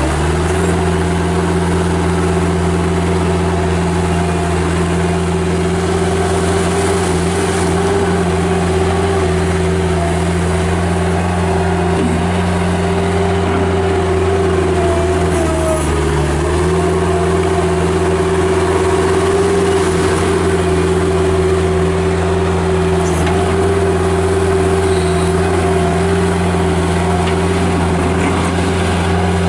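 Bobcat 751 skid steer's Kubota four-cylinder diesel engine running steadily at a constant speed. The engine speed dips briefly about halfway through, then recovers.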